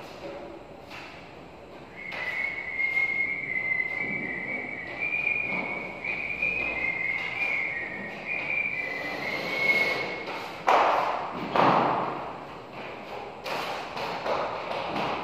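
Drywall knife scraping and knocking against a gypsum-board partition while joint compound is spread, with two louder scraping strokes about two-thirds of the way through and a few short knocks near the end. Through the middle runs a high whistling that steps up and down in pitch.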